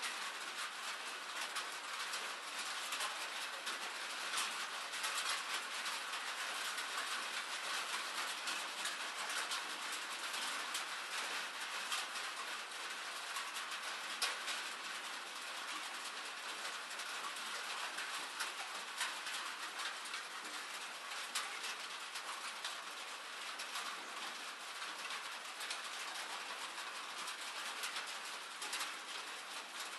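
Steady rain, an even hiss dense with fine droplet taps and the occasional sharper tick.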